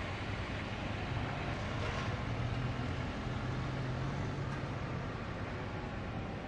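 A small SUV pulling out of a parking space and driving off across the lot, its engine a low steady hum through most of it, over a steady outdoor hiss.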